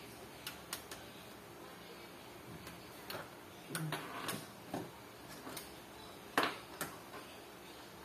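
Irregular clicks and taps from a mechanical keyboard and its cable being handled on a desk, with one louder knock about six and a half seconds in.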